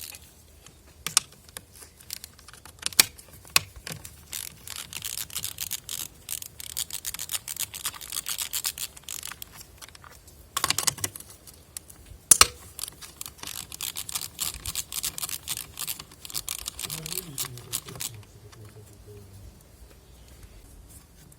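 Hand tools at work on a car: long runs of rapid metallic clicking, with a few sharp metal clinks in between and one louder clatter about ten seconds in.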